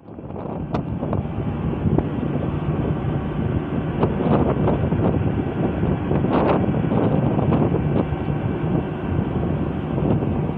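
Wind buffeting the phone's microphone outdoors: a steady, fluctuating low rumble with a few faint clicks.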